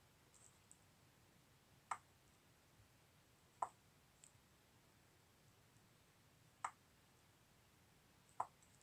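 Four sharp single clicks of a computer mouse, a few seconds apart, with a couple of fainter ticks between them, over near-silent room tone.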